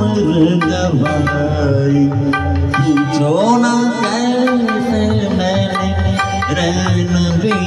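A man singing a slow, ornamented Hindi film song in classical style into a microphone, his voice gliding between long held notes over a recorded accompaniment with steady drum strokes.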